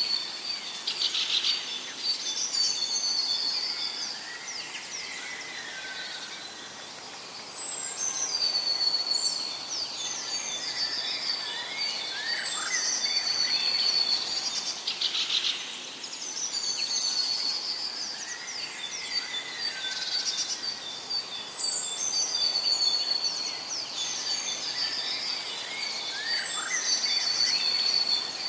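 Several birds singing and calling together: overlapping whistles, trills and short chirps, with a buzzy trill now and then. The same run of calls repeats about every fourteen seconds.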